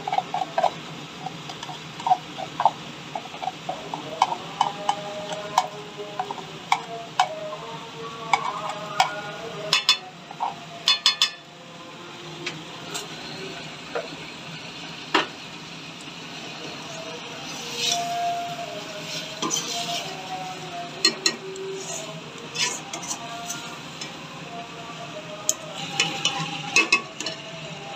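Steel ladle stirring and scraping through a tinda-and-chicken curry in a metal pot, with frequent clinks and scrapes of metal on metal. A steady sizzle of the bubbling gravy runs underneath.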